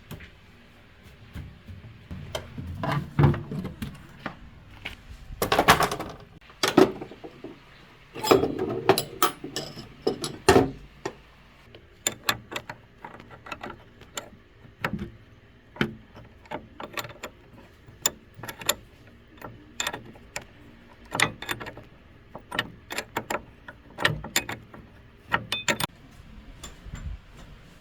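Metal tools and machine parts clinking and knocking during hand repair work, a scatter of sharp clicks at uneven spacing with louder clanks about six seconds and about ten seconds in.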